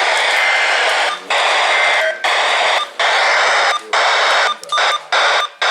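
Radio static: a loud, even hiss that cuts out briefly about once a second.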